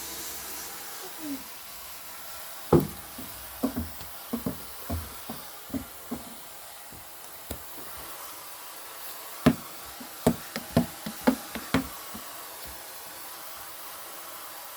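Basketball bouncing on a hard indoor floor: two runs of separate thuds, the first starting about three seconds in and the second about halfway through.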